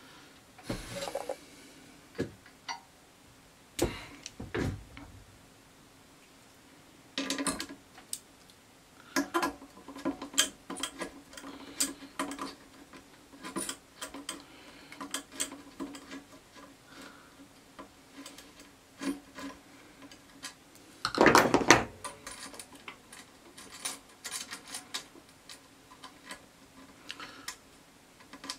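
Small metal hand tools, pliers and a screwdriver, clicking and clattering against a 3D printer's aluminium bed plate and its screws in irregular knocks, with one louder rattle about three quarters of the way through. A faint steady low hum runs underneath.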